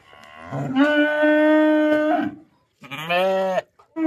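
Cows mooing: one long call held at a steady pitch for nearly two seconds, then, after an abrupt cut, a shorter, lower moo whose pitch bends.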